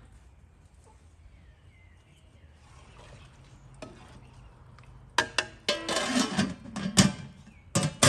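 Metal clanking of a large aluminium stockpot, its lid and a stirring utensil. It is quiet for the first few seconds, then a quick run of sharp, ringing knocks and scrapes starts about five seconds in, with two more loud knocks near the end.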